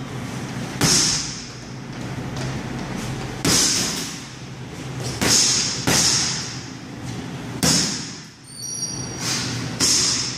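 Boxing gloves punching a hanging heavy bag: sharp thuds at irregular intervals, about seven in all, some in quick pairs.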